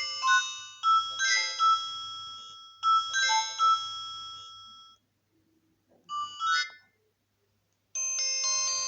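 Nokia 108 (RM-945) ringtones playing: a melody of short, fading notes that stops about five seconds in, a brief burst of notes about a second later, then a new ringtone melody starting near the end.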